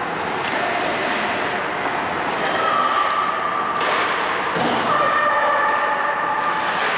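Ice hockey play: a steady rink noise, with two sharp knocks close together about four seconds in.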